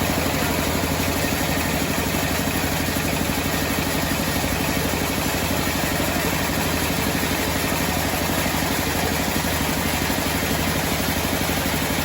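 Homemade sawmill's engine running steadily with an even, pulsing beat.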